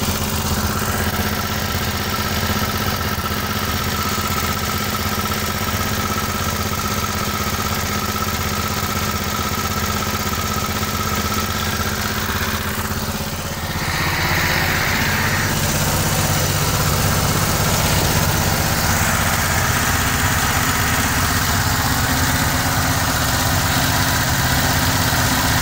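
Small gasoline engine of a home-built 24-volt generator running steadily at about 2100 rpm, belt-driving the alternator. Its sound shifts slightly about halfway through.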